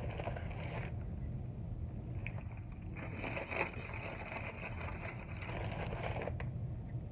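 Crinkling of food packaging being handled and sorted, briefly at the start and again for about three seconds from three seconds in. A steady low hum runs underneath.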